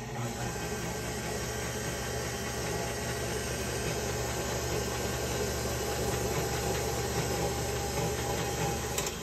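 KitchenAid Artisan tilt-head stand mixer running steadily, its dough hook turning dry semolina and flour in the steel bowl. The motor's hum stops with a click near the end as it is switched off.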